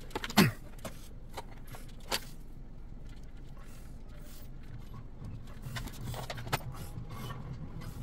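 Scattered clicks and light knocks of hands working metal flex cables and boat-hull parts, with a loud short sound falling in pitch about half a second in, over a steady low hum.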